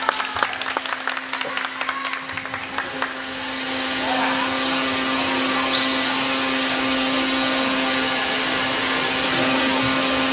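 A basketball bouncing on a gym floor, a quick run of knocks for about three seconds. Then a steady whooshing hum with a constant low drone takes over and stays level.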